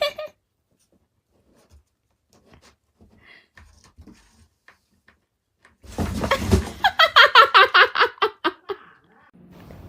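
A person laughing loudly in a quick run of 'ha-ha' pulses, starting about six seconds in and lasting about three seconds, after a stretch of faint small rustles and taps.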